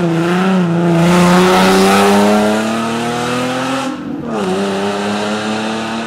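Rally car engine accelerating hard, its pitch climbing steadily for about four seconds, dropping sharply at a gear change, then climbing again.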